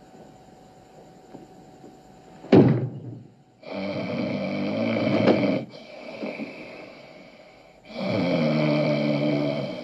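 A sharp thump about two and a half seconds in, then a man snoring: two long, loud snores, about four seconds apart.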